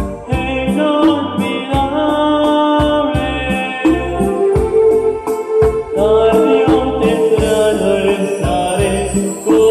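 Live choir music: a keyboard with an organ sound holds chords over a steady electronic drum beat, with a sung melody line.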